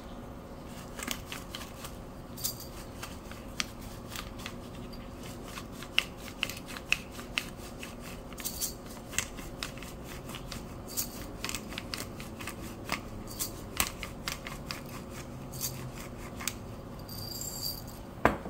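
Hand-twisted pepper grinder cracking peppercorns: a run of irregular crunching clicks, several a second. A single knock near the end.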